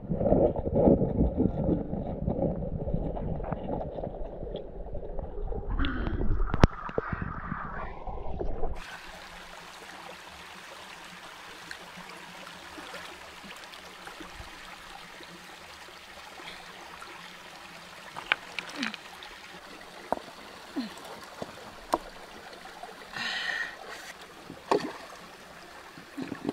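Muffled, low water churning and sloshing recorded with the camera underwater, loud for about the first nine seconds. Then a sudden cut to a quieter steady stream hiss with scattered small knocks and a short louder rush near the end.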